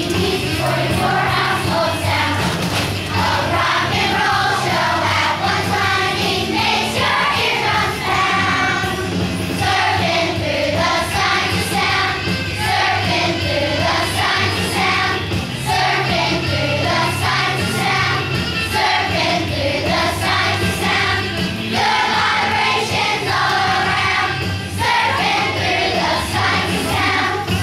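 Children's choir singing a song together over an instrumental accompaniment with a steady bass line.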